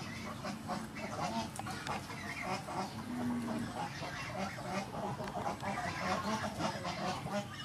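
Domestic fowl calling over and over in short, repeated calls.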